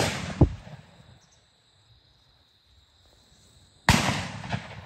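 Shotgun shots echoing away: one at the start, a second about half a second later, and another near the end. In the lull between them insects chirr steadily at a high pitch.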